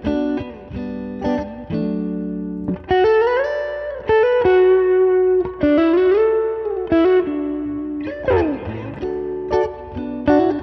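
Fender Stratocaster played through an Ibanez TS9 Tube Screamer overdrive into a Fender Princeton Reverb amp: an overdriven single-note lead line with bent, held notes, and a quick downward slide about eight seconds in.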